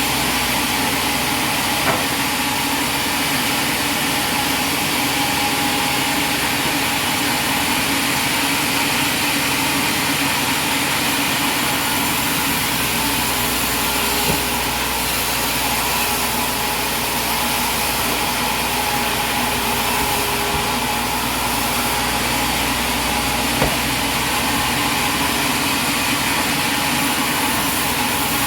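Sawmill machinery running steadily with a constant hum and whine, and three short knocks spread through it.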